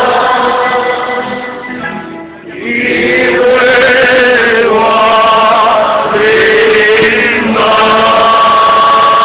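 A group of men singing a folk song together, holding long notes. The voices fade briefly about two seconds in, then come back and settle on one long held note near the end.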